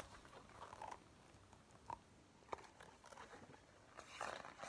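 Near silence: room tone with a few faint clicks and a soft rustle near the end.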